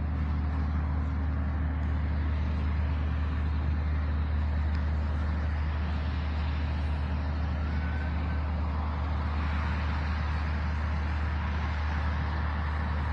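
Steady low rumble of a motor vehicle engine running nearby, with an even hiss of street noise above it.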